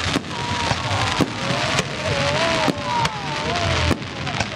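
Aerial fireworks bursting close by: sharp bangs every half second to a second, over a dense crackling hiss, with a wavering whistle-like tone through the middle.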